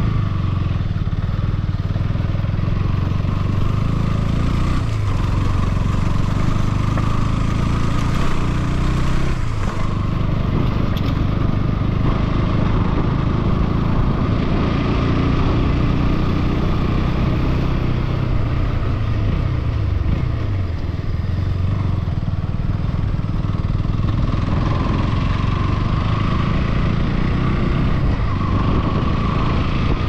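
A vehicle engine running steadily under way, with constant rushing road and wind noise. The engine's pitch dips a few times.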